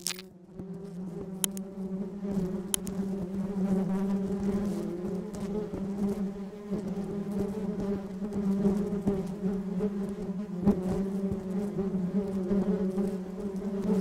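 Honeybees buzzing on the comb: a steady, even hum with a few faint clicks.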